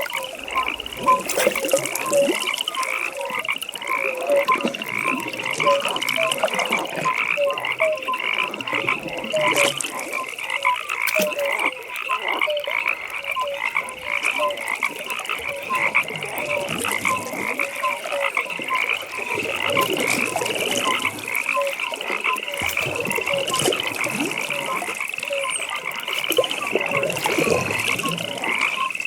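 Chorus of frogs calling: many short croaks overlap in a steady, unbroken rhythm. Higher calls that rise at the end repeat alongside lower notes.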